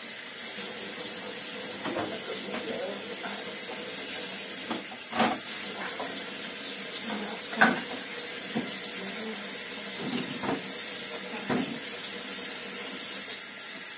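Domestic cat chewing a piece of raw chicken fillet: irregular wet smacks and clicks of its jaws, two of them louder, over a steady hiss.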